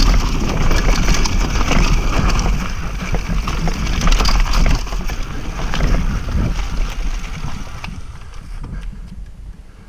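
Norco mountain bike ridden fast down a dirt singletrack, with the tyres on gravel and leaf litter, the chain and frame rattling over bumps, and wind on the camera's microphone. The noise fades over the last couple of seconds as the bike slows.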